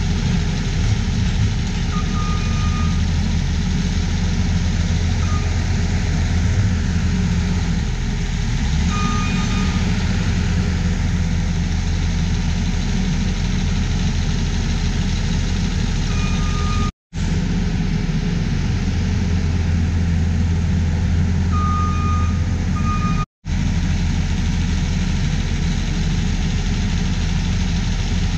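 Diesel engines running steadily: a New Holland skid steer loader working as it loads manure into a spreader, over a John Deere tractor idling close by. The loader's backup alarm gives short beeps, singly or in pairs, about five times. The sound cuts out for an instant twice.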